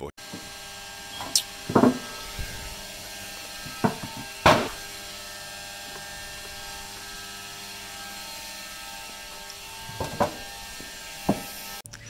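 Knocks and clatters as beekeeping gear (a metal bee smoker and a tray of pine needles) is handled and pulled from a storage box, about six of them, the loudest near the middle, over a steady mechanical hum.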